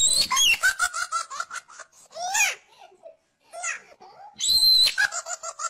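Hearty, high-pitched laughter in choppy bursts with squealing peaks, loudest at the start and again about four and a half seconds in.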